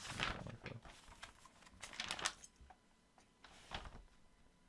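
Computer keyboard being typed on in short irregular runs of faint clicks.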